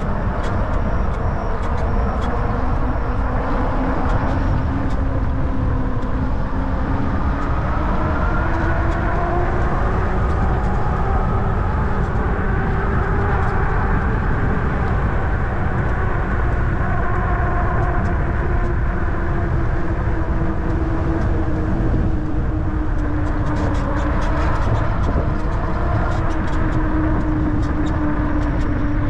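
E-bike riding along a concrete path: steady wind rush and rolling noise, with a faint hum that rises and falls slowly in pitch as the speed changes. Light ticks now and then, near the start and again later on.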